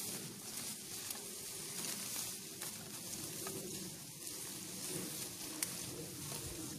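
Rustling of tall grass and brush and soft footsteps as several people walk through the vegetation, over a steady high hiss. One sharp click about five and a half seconds in.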